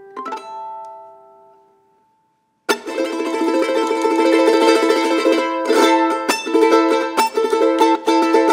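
Charango played solo: a few plucked notes ring and fade out to a short silence, then fast, loud strumming of chords starts abruptly about a third of the way in and continues.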